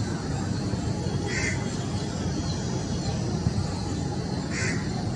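A bird calls twice, short calls about a second in and near the end, over a steady low rumble.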